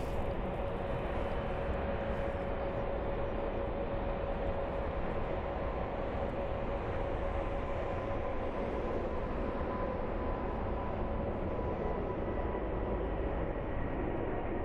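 Jet airliner engines at takeoff thrust: a steady rumbling noise with a steady whine running through it.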